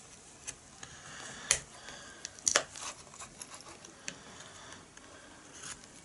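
Scattered clicks and knocks of a small plastic alarm unit, the old battery backup sounder, being handled and turned over on a workbench, with the sharpest knocks about one and a half and two and a half seconds in.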